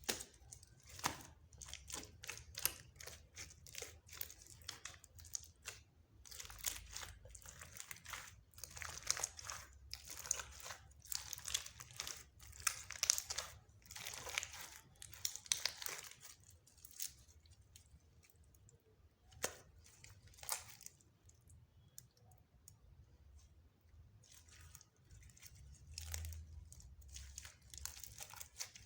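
Slime being kneaded, stretched and squeezed by hand, making dense crackling and popping clicks; the clicking is busiest in the first half, thins out about two-thirds through and picks up again near the end.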